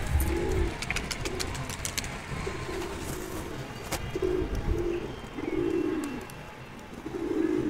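A flock of domestic pigeons cooing: repeated low coos, roughly one every second, with a few sharp light clicks in the first half.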